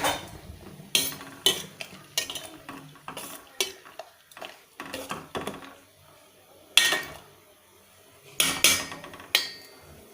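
A utensil stirring a pot of boiling herbal decoction, knocking and clinking against the pot in irregular strikes; the loudest knocks come about seven and eight and a half seconds in.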